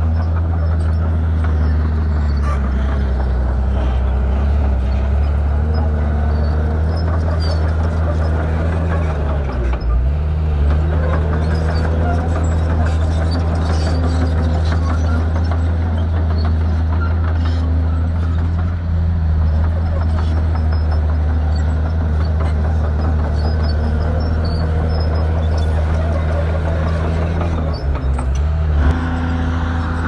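Heavy diesel engine of a bulldozer running steadily and loudly. Its pitch dips briefly about ten seconds in and shifts again near the end.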